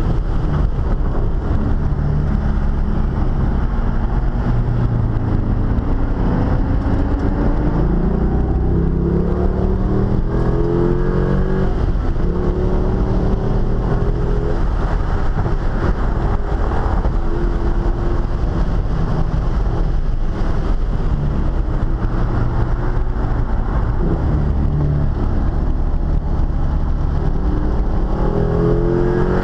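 Car engine on a newly installed camshaft, heard from inside the cabin, worked hard around a race track: it climbs through the revs in repeated pulls, with a long rising run from about six to eleven seconds in and another near the end, over constant wind and road noise.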